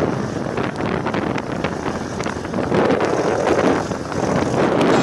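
Heavy wind noise buffeting the microphone as it moves at speed beside galloping horses, with irregular thuds of hooves on the dirt track mixed in.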